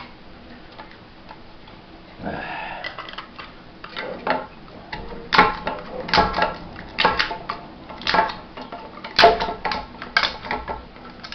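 Plastic support material being picked and snapped off a 3D-printed part by hand: a short scrape, then a run of irregular sharp clicks and cracks from about halfway through.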